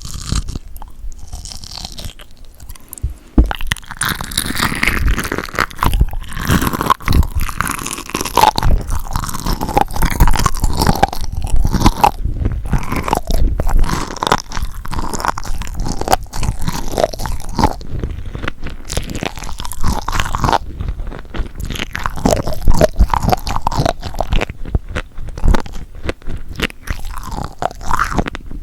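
Close-miked chewing of seafood: wet, crunchy bites and a dense run of small crackles and clicks in the mouth. It starts sparse and becomes steady and busy after about three seconds.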